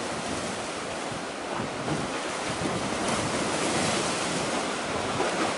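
Wind blowing across the microphone in irregular gusts, over the steady hiss of a choppy sea.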